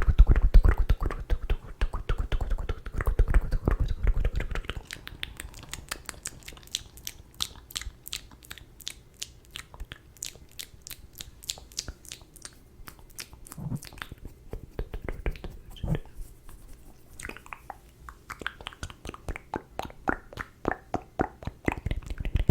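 ASMR mouth sounds: a rapid run of lip and tongue clicks, dense and louder for the first few seconds, then sparser and quieter.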